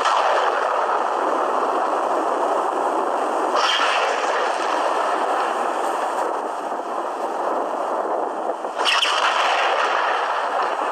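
Thunder: three sudden cracks, one at the start, one about three and a half seconds in and one near nine seconds, each rolling on into a long rumble. Recorded on a phone, it sounds thin with little deep bass.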